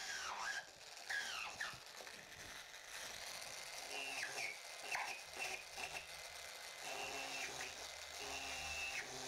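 A small drill boring a bolt hole through a welded plastic bumper patch, running in several short bursts. Its whine dips in pitch as the bit bites into the plastic.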